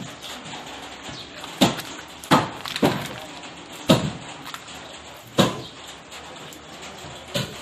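Sharp knocks on wood, about six at uneven intervals, from construction work on the timber frame of a house under renovation.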